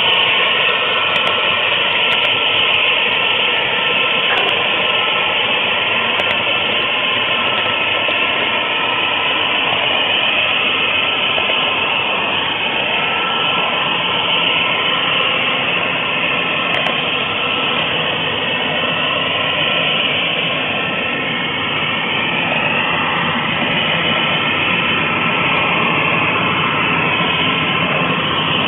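HO-scale model train wheels rolling on track, a steady noisy rumble carried through the flat car to a camera riding on it, with faint whines that drift up and down in pitch.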